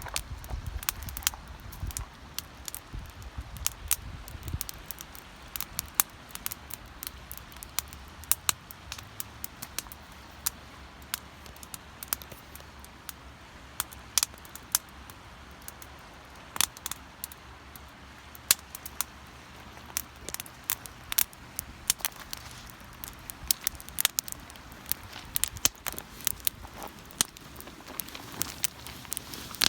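Wood campfire crackling, with many irregular sharp pops and snaps. A low rumble in the first few seconds.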